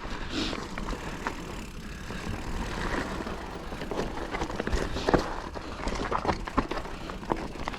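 Mountain bike riding a dry, loose dirt trail: tyres crunching over dirt and stones, with many sharp knocks and rattles of the bike over bumps, the loudest about five seconds in, over a constant low rumble.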